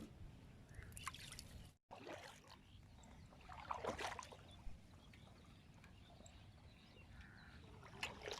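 Faint water sloshing, with a few short splashes about a second in, around four seconds in, and near the end.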